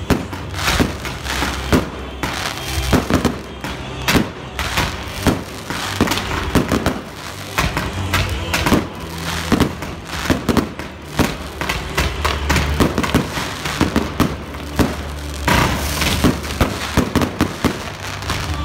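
Fireworks display: a rapid, near-continuous string of bangs and crackles from bursting shells and low-level effects.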